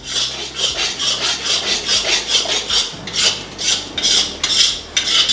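A spatula scraping and stirring thick masala paste in a large metal kadhai, with even, repeated scraping strokes about two to three a second. The dry kala mutton masala is being roasted in oil on a low flame and kept stirred so it doesn't stick to the bottom of the pan.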